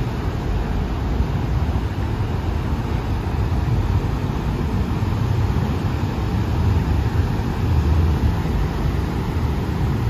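Pacific Ocean surf breaking and washing up the beach, heard as a steady, deep rushing rumble without distinct separate crashes.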